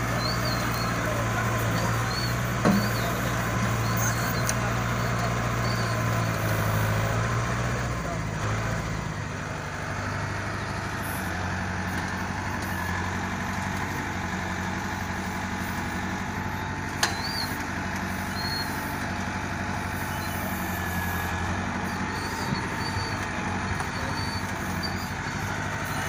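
Tractor loader backhoe's engine running steadily while the front bucket pushes soil, its note dropping a little about a third of the way through; a couple of short sharp knocks stand out above it.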